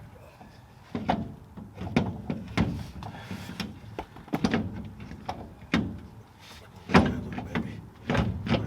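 Irregular metallic clunks and knocks, about a dozen, as a car's rear axle and driveshaft are shifted and worked into place by hand; the loudest clunk comes about seven seconds in.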